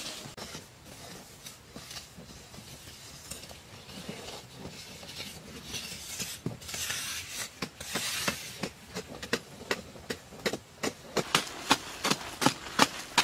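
Small hand hoes chopping and scraping into hard, dry soil. Scattered knocks and scraping at first, then a quick run of sharp strikes, about three a second, growing louder near the end.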